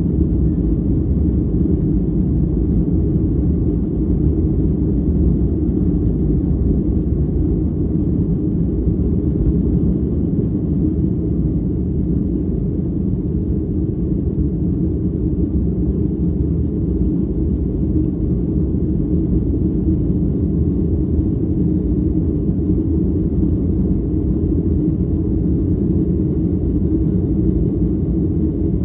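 Steady, loud cabin rumble of an airliner's jet engines at takeoff power, heard from a window seat as the plane leaves the runway and climbs out.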